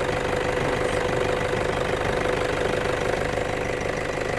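A vehicle engine idling steadily, with a constant hum and no change in speed.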